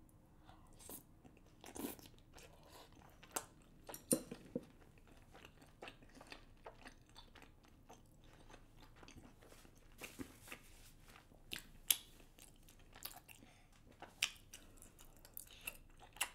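A person chewing and eating rice cakes coated in black bean sauce: soft, irregular mouth clicks and smacks, with a few louder ones scattered through.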